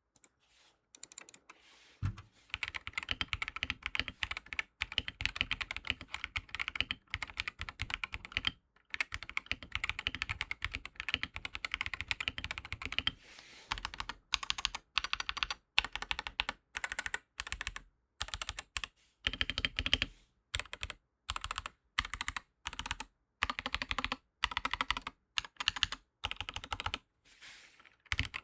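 Typing on an Aula WIN60 HE 60% keyboard with magnetic Hall effect switches, as a sound test: rapid, continuous key clacks that begin about two seconds in and run in long bursts broken by short pauses.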